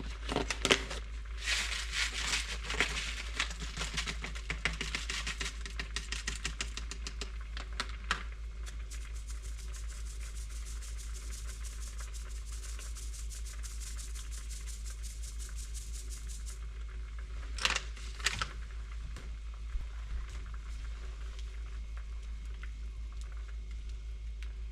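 A packet of cock soup mix being handled and opened over the pot: crinkling and crackling with a steady hiss that cuts off suddenly about two-thirds through, then two short rustles.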